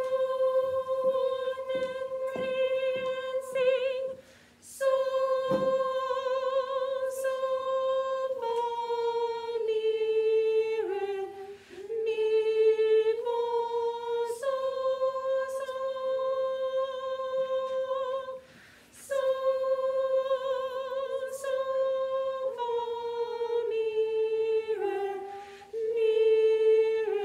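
A single female voice sight-singing an unaccompanied treble melody in F major in solfège, holding each note with a little vibrato and moving mostly by step, with short breaths between phrases. A few faint taps sound in the first few seconds.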